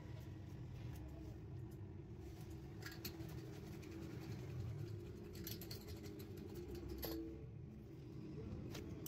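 A steady low rumble, with a few light clicks and taps as hands handle the tyre and its repair patch.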